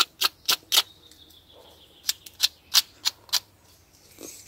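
Nippers snipping small oak twigs into pieces: a quick run of sharp clicks about three to four a second, a pause of about a second, then another run.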